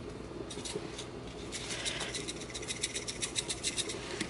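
A utensil clicking and scraping against the pot as it works through mashed parsnip and potato, in quick light ticks that get busier about a second and a half in.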